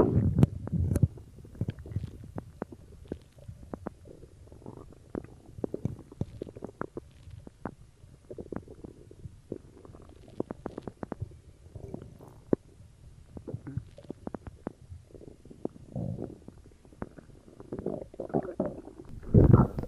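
Human stomach gurgling and rumbling after drinking cola, heard close up. The irregular low gurgles are peppered with many small bubbly pops, with louder surges about a second in and again near the end.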